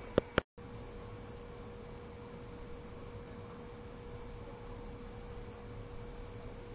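Two sharp clicks and a split-second dropout right at the start, then a steady electrical hum, a single unchanging tone, over faint background hiss.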